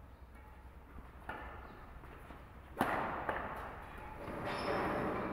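Badminton rackets striking a shuttlecock in a rally: a few sharp hits, the loudest about three seconds in.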